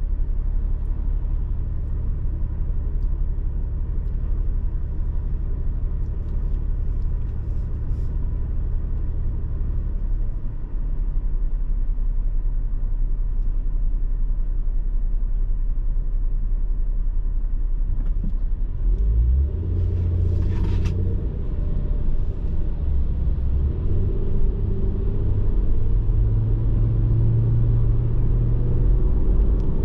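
Car idling with a steady low rumble while stopped at a traffic light. About nineteen seconds in, it pulls away, and engine and road noise rise in pitch as it accelerates.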